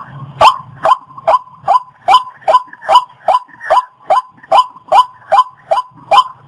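A waterhen calling: a loud harsh note repeated evenly, a little over twice a second.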